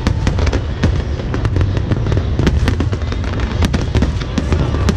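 Aerial fireworks display: rapid, irregular cracks and pops of many bursting shells, several a second, over a steady low rumble.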